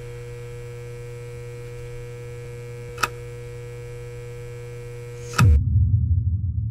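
Steady low electrical hum with a few faint higher steady tones, broken by a short click about three seconds in. Near the end a sudden deep boom cuts the hum off and rumbles on as it fades.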